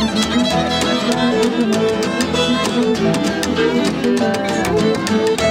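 Bluegrass fiddle playing an instrumental break over the band's steady strummed rhythm.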